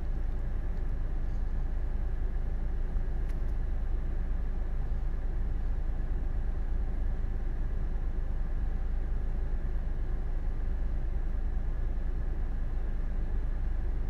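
Steady low rumble of background noise, even throughout, with a faint tap about three seconds in.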